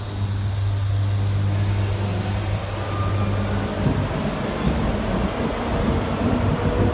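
SNCF BB 15000 electric locomotive pulling away slowly, giving a steady electric hum. From about four seconds in, a louder rolling rumble and clatter of wheels on rails takes over as the locomotive and coaches pass.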